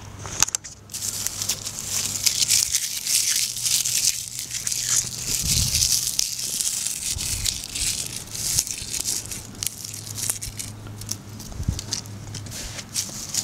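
Close, continuous crinkling and crackling rustle, with a few dull low thumps.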